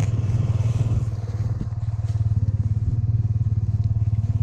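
Motorcycle engine, a Honda FTR's single cylinder, running steadily with an even rapid pulse while riding slowly on snow.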